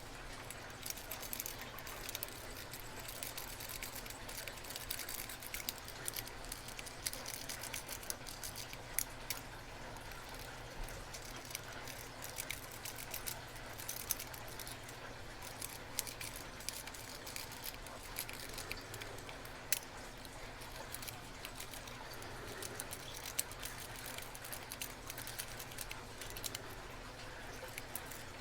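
Lock pick and tension wrench working the pins of a brass rim cylinder: faint, irregular small metallic clicks and light scraping.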